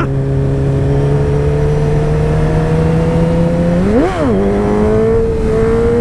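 Kawasaki Ninja ZX-10R's inline-four engine running under way, its pitch slowly rising as the bike gains speed. About four seconds in the revs jump up briefly and drop back, settling a little higher before climbing again.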